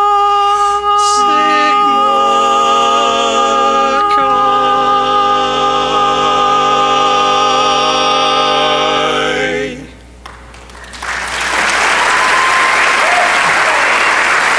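Barbershop quartet ringing out the final held chord of its song, a cappella, with the chord shifting twice before the voices cut off together about ten seconds in. After a second's pause the audience breaks into applause.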